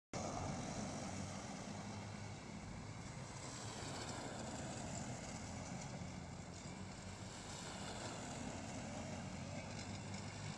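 Electric quad bikes driving on a snow track: a steady vehicle noise with no sharp events.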